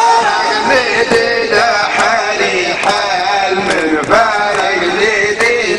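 A man singing an Arabic folk song solo, holding long notes that waver and glide up and down in ornamented runs.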